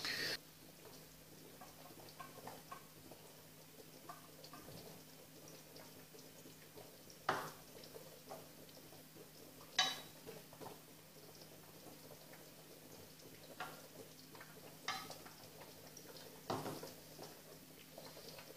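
A metal saucepan knocking and clinking against its water-bath pan and small glass jars as melted beeswax salve is poured into the jars. There are a few separate clinks, the loudest about ten seconds in, over a faint steady hum.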